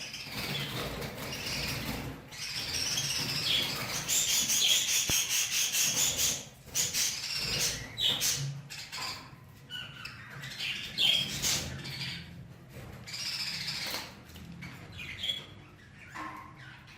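Budgerigars chirping and squawking in a string of short calls, loudest about four to six seconds in.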